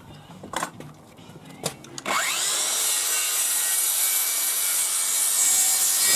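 DeWalt DCS578 54V FlexVolt 190 mm cordless circular saw starting about two seconds in, its whine rising quickly to full speed, then ripping steadily along a 9x2 timber. A few light knocks of the saw being handled come before it starts.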